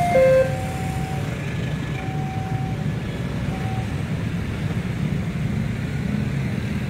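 A level-crossing warning alarm's two-tone chime cuts off about half a second in. It leaves a steady low rumble of engines and traffic at the crossing.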